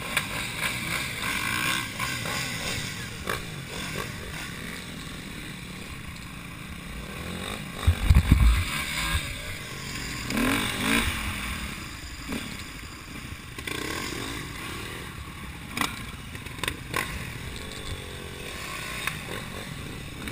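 Enduro dirt bike engines running, heard from a camera mounted on a moving bike, with a loud low rumble on the microphone about eight seconds in and a few short knocks later on.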